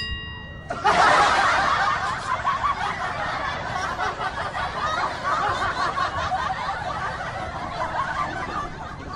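Laughter from several voices overlapping, starting about a second in and going on steadily until just before the end.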